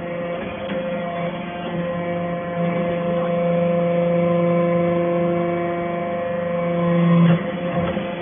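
Hydraulic baler machine running with a steady hum of several held tones, growing louder, then dropping suddenly about seven seconds in.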